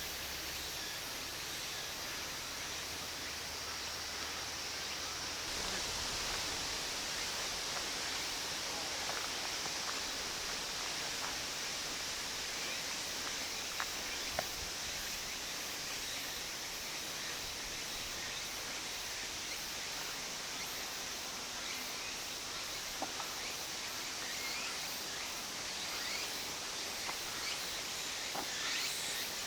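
Steady outdoor ambience: an even hiss of natural background sound, with a few faint ticks about halfway through and again near the end.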